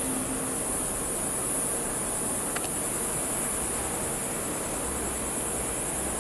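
Steady, high-pitched chirring of night insects such as crickets. A faint low hum from the train that has just passed fades out in the first second.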